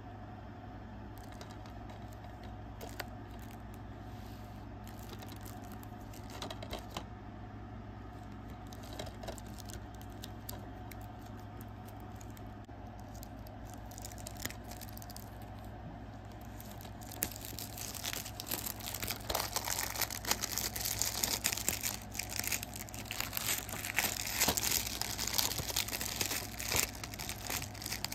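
Plastic shrink-wrap on a DVD case being handled, torn and crinkled: light scattered clicks at first, then loud, dense crinkling from a little past halfway.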